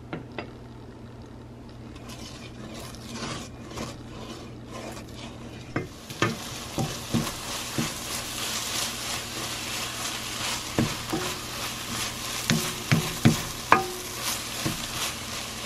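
Scrambled eggs sizzling in a saucepan as a wooden spoon stirs them, scraping and knocking against the pan. The sizzle grows louder about six seconds in.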